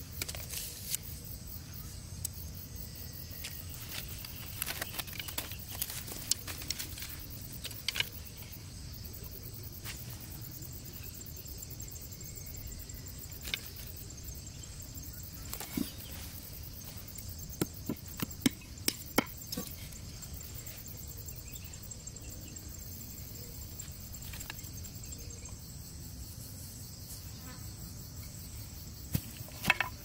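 Steady high trill of insects throughout, with scattered light knocks and clicks as split bamboo sticks are handled and set into the soil, in small clusters several seconds apart.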